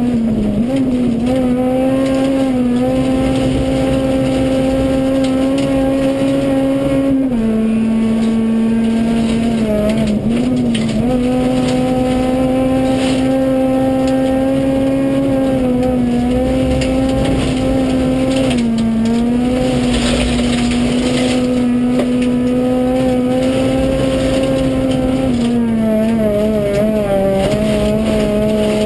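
Honda Civic Type-R rally car's four-cylinder engine running hard at high revs, heard from inside the cabin. The pitch drops sharply and climbs back several times as the driver changes gear, over a steady rush of tyre and gravel noise.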